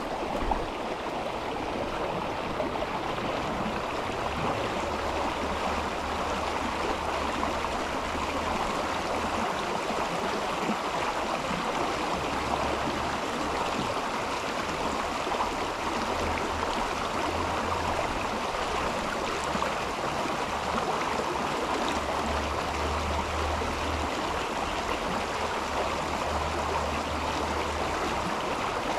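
Mountain river flowing steadily, an even rushing of water, with a low rumble that comes and goes underneath.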